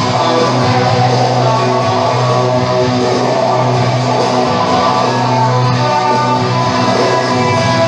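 Instrumental music led by strummed guitar over a steady held bass.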